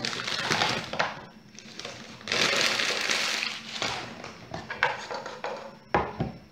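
A bag rustling and crinkling in bursts as it is opened and meat cubes are tipped out of it, with a sharp knock about six seconds in.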